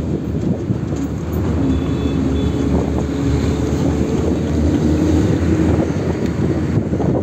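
Steady road noise from a moving vehicle, a dense low rumble with wind hiss, and a humming engine tone in the middle.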